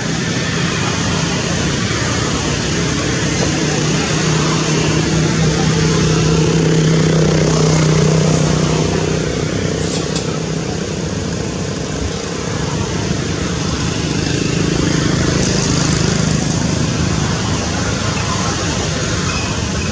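A motor vehicle's engine hums steadily over a constant hiss. The hum grows louder toward a peak about eight seconds in, falls away, and swells again about three quarters of the way through.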